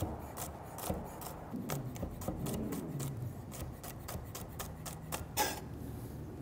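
Chef's knife chopping green beans on a wooden cutting board: a quick, even run of knife strikes, about four a second, with one louder knock near the end.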